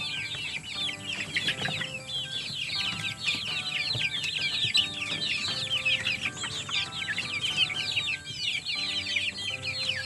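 A flock of young chickens peeping constantly, many short high chirps overlapping, over quiet background music.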